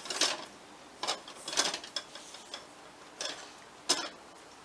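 Stainless-steel saucepan handled on an electric coil burner, giving several short bursts of clicking, rattling metal clatter.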